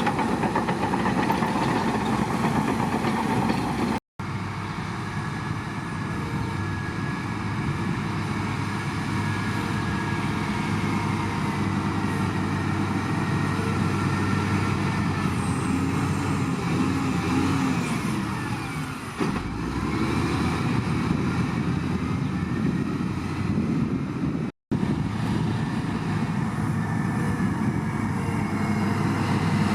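Shantui bulldozer's diesel engine running steadily, twice broken off by a brief silent gap.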